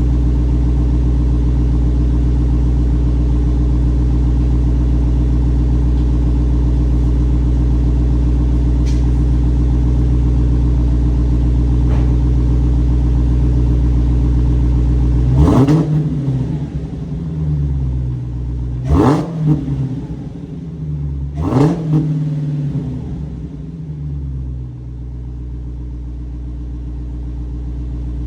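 Dodge Demon 170's supercharged 6.2-litre Hemi V8 on its stock exhaust, idling steadily, then revved with three quick throttle blips about halfway through, each rising and falling in pitch, before settling back to idle.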